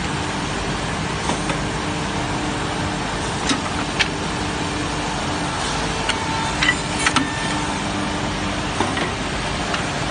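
Woodworking double-end trim saw running: the steady hum and whir of its spinning saw motors, broken by sharp clicks and knocks every second or so as boards are clamped and carried through.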